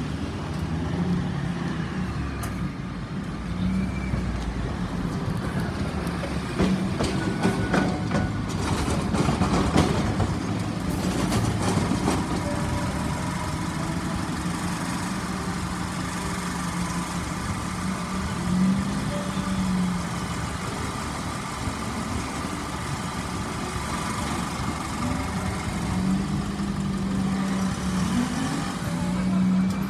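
Road traffic passing close: the engines of a city bus and a car-carrier truck over a steady low hum of idling engines, with a run of sharp clicks and knocks for several seconds about a quarter of the way in.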